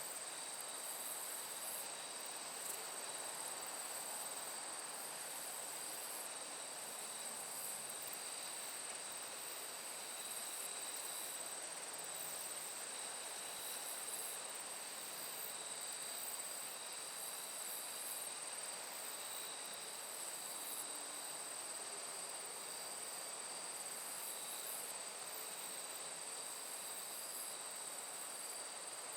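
Late-summer night ambience in a corn field: crickets and other insects trilling steadily in high, unbroken choruses, with faster pulsing chirps above them over a soft hiss.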